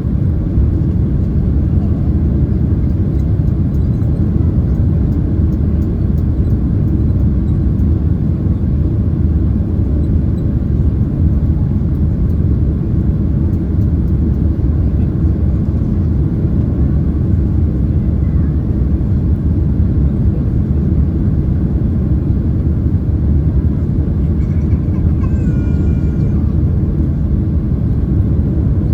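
Steady low cabin roar of a Boeing 767-300ER in flight: engine and airflow noise heard from inside the passenger cabin.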